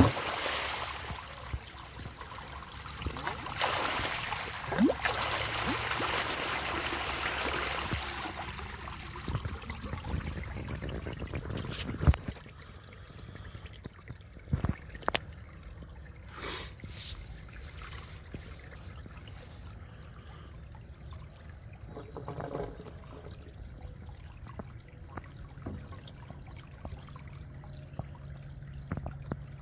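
Water pumped by two Liberty sump pumps pouring steadily out of the discharge outlet onto the ground. It is louder for the first eight seconds or so and quieter after that, with a few sharp knocks midway.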